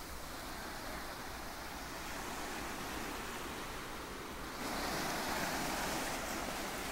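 Small ocean waves breaking and washing up a sandy shore, a steady wash of surf that grows a little louder about two-thirds of the way through.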